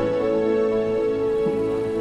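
Soft, slow orchestral film score, with sustained notes held under a single high note that enters a moment in and holds.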